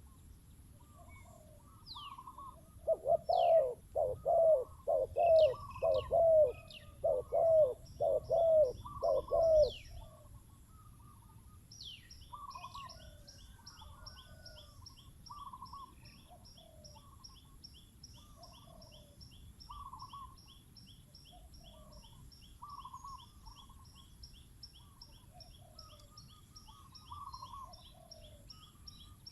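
Spotted doves cooing. A close, loud run of coos comes from about 3 to 10 seconds in, with fainter coos from another dove throughout. From about 12 seconds in, another bird gives a fast, high-pitched string of repeated notes.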